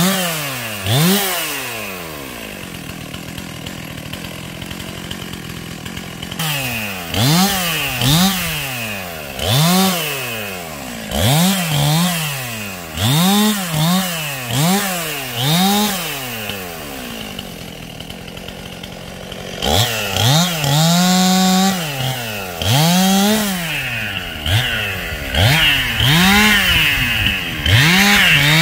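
Two-stroke gasoline chainsaw cutting up the branches of a felled tree. It idles, then revs up and drops back again and again in short strokes, one per cut, with a couple of idle stretches and a longer steady full-throttle cut a little past the middle.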